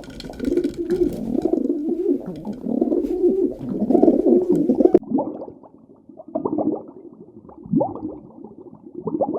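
Farm animals calling: a dense run of low, wavering calls that cuts off sharply about five seconds in, then a duller stretch of separate calls with one falling cry near the end.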